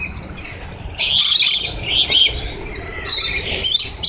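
A flock of lorikeets screeching and squawking in several shrill, choppy bursts, loudest near the end.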